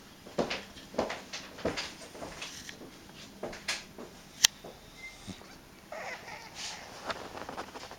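Short, irregular noises from a cat, with one sharp click about four and a half seconds in.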